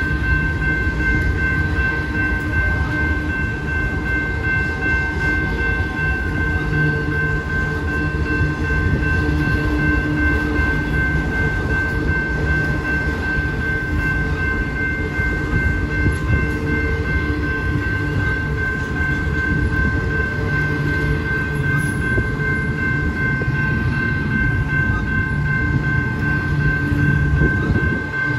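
Freight train cars rolling steadily past at a grade crossing: a continuous rumble and clatter of wheels on rail, with a steady high ringing tone over it.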